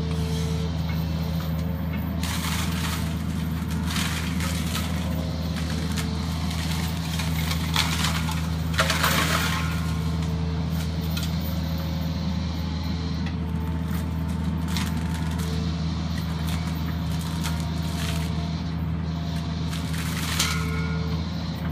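John Deere 50G compact excavator's diesel engine running steadily under load while its FX-26 brush mulcher grinds brush, with repeated bursts of cracking and shredding wood; the loudest burst comes about nine seconds in.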